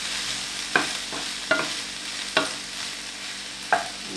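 Fusilli pasta being stirred with a wooden spatula in a sizzling ceramic-coated frying pan: a steady sizzle with four sharp knocks of the spatula against the pan.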